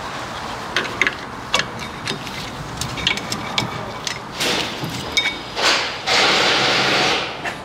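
Old front brake pad being pried loose in the caliper bracket with a screwdriver: sharp metal clicks and clinks, then scraping as the pad slides out of the bracket, the longest scrape about six seconds in.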